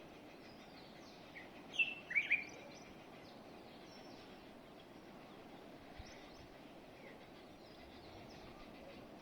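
Songbirds chirping over a steady background hiss, with a few louder, sharp chirps about two seconds in and fainter high chirps scattered throughout.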